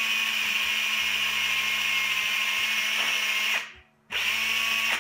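DeWalt 18-volt cordless drill's motor running steadily at full speed with a high whine, run hard to power through the fault that had stopped it. About three and a half seconds in it winds down, and after a short pause the trigger is pulled again for about a second.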